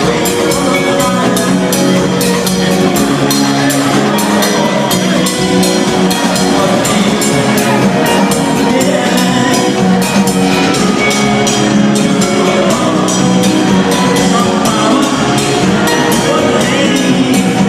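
Live gospel band playing upbeat music, with a steady drum-kit beat under keyboard and other instruments.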